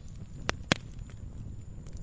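Wood fire crackling: a steady low rumble of burning logs with sharp pops, two loud ones close together about half a second in and a few fainter ticks.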